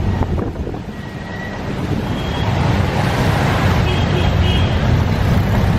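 Street traffic: a steady rumble of vehicle engines in slow, jammed traffic, with wind buffeting the microphone.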